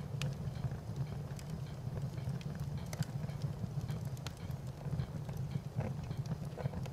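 Fire crackling: irregular sharp snaps and pops scattered over a steady low rumble.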